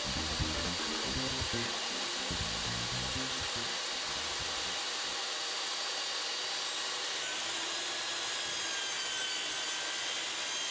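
A power tool working wood, giving a steady, even hiss with a faint high whine.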